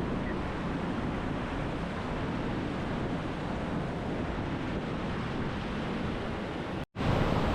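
Lake Superior waves washing over a rocky shoreline, a steady rushing noise mixed with wind buffeting the microphone. The sound drops out for an instant near the end.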